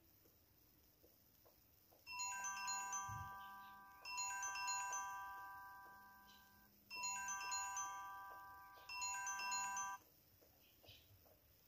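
A phone ringtone: a bright chiming melody in four short phrases, starting about two seconds in and stopping about two seconds before the end.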